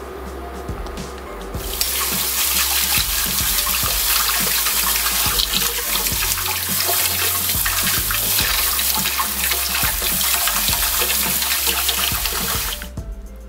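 Kitchen faucet spraying a stream of cold water over cooked somyeon noodles in a mesh strainer and splashing into a stainless steel sink, rinsing the starch off the boiled noodles. The water comes on about two seconds in and shuts off just before the end.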